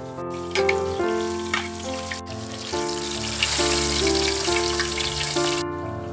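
Instrumental background music of held notes changing in steps. From about three and a half seconds in, hot oil sizzles around a whole fish deep-frying, and the sizzle cuts off suddenly near the end.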